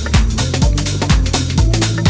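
Electronic dance music with a steady beat of about two kicks a second and a heavy bass line.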